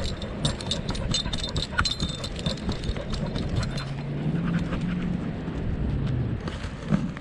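Metal dog tags jingling and rattling in quick irregular ticks on a dog's collar as the dog moves, heard from a camera strapped to the dog's back. About halfway through, a low steady hum comes in for a few seconds.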